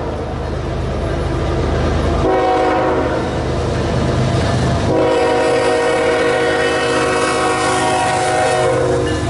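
Diesel freight locomotive horn sounding for a grade crossing: a long blast of a several-note chord starting about two seconds in, then a second, longer blast from about five seconds in. The low rumble of the locomotive's diesel engine comes first and continues under the horn.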